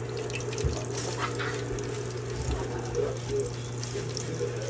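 Floured chicken breast frying in hot oil in a stainless steel pot: a steady bubbling sizzle with scattered crackles and pops, over a steady low hum.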